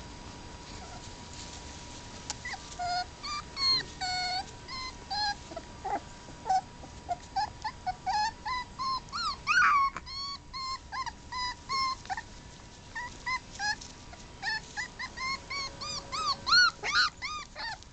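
Five-week-old puppies yipping and whining in play: many short, high-pitched yelps in quick runs, starting about two seconds in and loudest near the middle and near the end.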